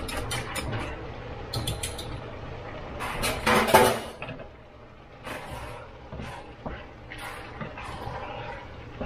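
A metal whisk clicking and scraping against a pot as it breaks up browning ground meat: a quick run of strikes at first, a louder scrape about three and a half seconds in, then scattered lighter taps over a steady low hum.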